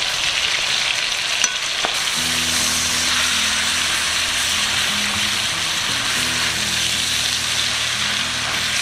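Ground pork sausage sizzling steadily as it browns in a cast iron skillet, with a spatula stirring and breaking it up.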